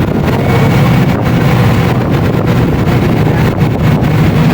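Bus diesel engine running steadily with a constant low hum, with wind noise on the microphone.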